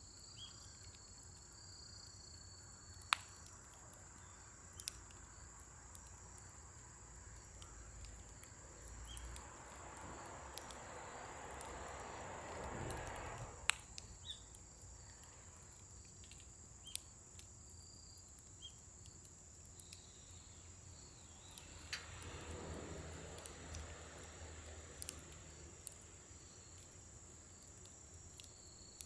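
Scrap-wood fire crackling with scattered sharp pops, swelling twice into a louder rush, over a steady high insect trill.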